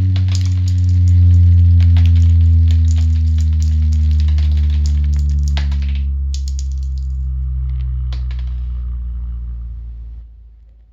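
A low bass test tone slowly falling in pitch, with salt crystals jumping and rattling in quick, dense ticks. The rattling thins to a few scattered ticks about six seconds in, and the tone fades out near the end.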